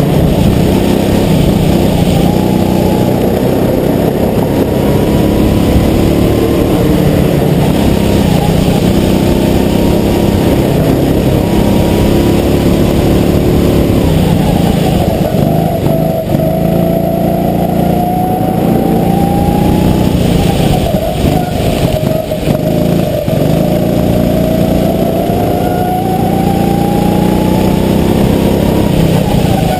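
Go-kart engine heard close up from a camera on the kart, running hard through a lap. Its pitch drops about halfway through as the kart slows, climbs again, dips once more and rises toward the end.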